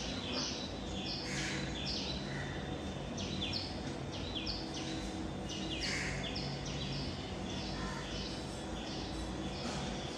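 Small birds chirping over and over, short high chirps falling in pitch, several a second and often in pairs, over a steady low hum.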